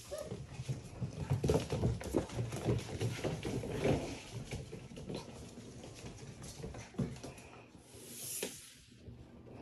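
Portuguese Water Dog × Poodle puppies scampering and playing on a hard wooden floor, their claws clicking and pattering quickly. The clicking is busiest in the first half and thins out later.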